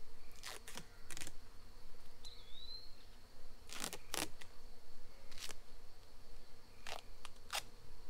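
Short scraping, rustling handling noises, about eight in all in uneven groups, from hands working at a wooden bee swarm box, over a steady faint insect drone.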